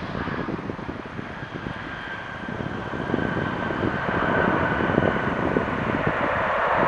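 Jet engine noise from a Boeing 737-800's CFM56 engines during landing: a steady rushing noise with a faint whine, growing louder through the second half. Wind buffets the microphone.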